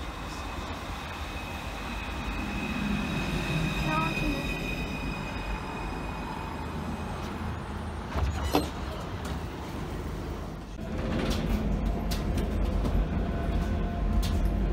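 A tram running on its rails, with a high steady wheel squeal for the first half. A sharp clack comes about eight seconds in, then a run of clicks as it gets louder.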